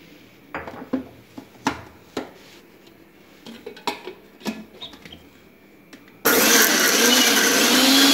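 Clicks and knocks of a stainless-steel jar being set onto an electric mixer grinder and its lid fitted. About six seconds in, the mixer's motor starts suddenly and runs loud and steady, grinding pomegranate seeds with sugar.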